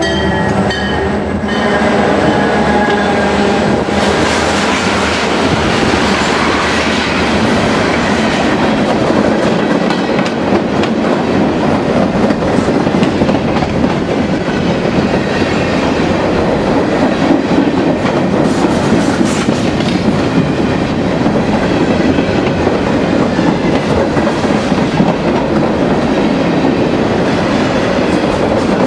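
Freight train passing close by behind two EMD diesel locomotives. The lead unit's horn cuts off about a second in, then a long string of covered hoppers and tank cars rolls past with steady wheel-on-rail noise and clickety-clack over the rail joints.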